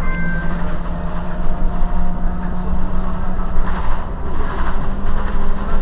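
Irizar i2e battery-electric city bus standing still with its systems running: a steady electric hum over a constant low rumble. A brief high two-note beep sounds right at the start.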